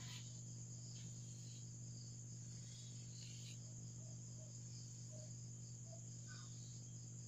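Faint steady background: a constant high-pitched chirring and a low hum, with a few faint short squeaks of a marker being drawn across a whiteboard.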